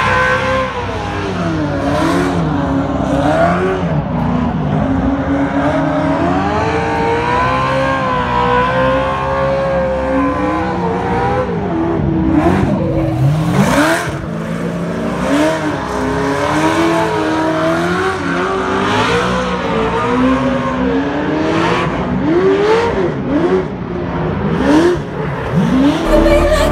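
Off-road race truck spinning donuts on pavement: the engine revs up and down over and over while the tyres squeal and skid.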